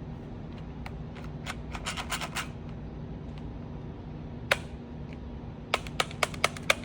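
Plastic clicks from a toy Nerf-style blaster being worked: a patter of light clicks about two seconds in, one sharp click a little past halfway, then five sharp clicks in quick succession near the end, about four a second. A steady low hum runs underneath.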